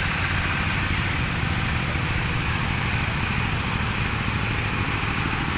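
Diesel generator engine running steadily: a constant low throbbing hum with a hiss above it.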